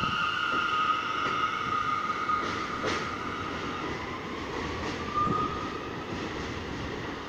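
A New York City Subway train of the newer stainless-steel type pulling out along elevated track, with rumbling wheels and a high steady whine that fades as it recedes. There is a sharp clank about three seconds in and a short squeal about five seconds in.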